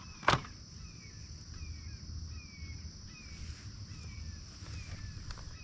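A single sharp plastic clunk as the mower's bagger hopper is set down onto its mount. After it, a bird calls in short falling chirps about twice a second over a steady high-pitched drone.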